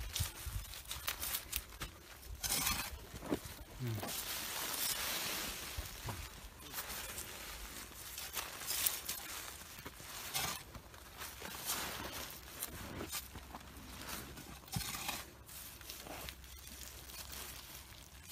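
Dry soil being poured from a metal scoop and pressed in by gloved hands around a pepper seedling set in black plastic mulch: irregular gritty scraping, pattering soil and crinkling of the plastic film.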